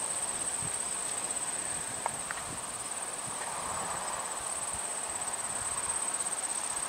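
Insects trilling: a steady, high-pitched, finely pulsing drone, with an irregular low rumble underneath.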